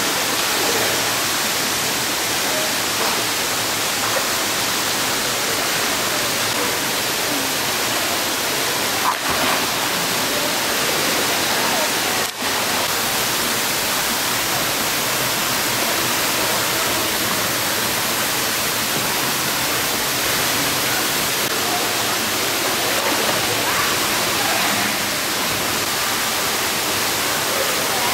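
Steady rush of falling and splashing water in an indoor pool hall, with a brief dip about twelve seconds in.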